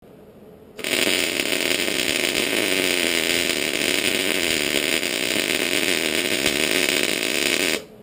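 Wire-feed welder arc crackling steadily as a bead is run on the steel teeth and shanks of an excavator bucket, starting about a second in and cutting off sharply just before the end.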